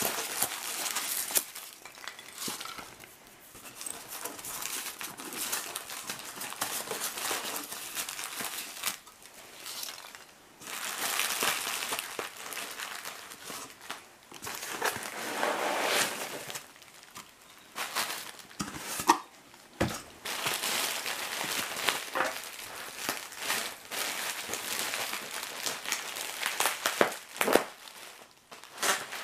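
Hands rustling and crinkling through a shipping box's packing material (foam packing peanuts, a plastic bag and the cardboard flaps), in irregular handling noise with a few sharp knocks.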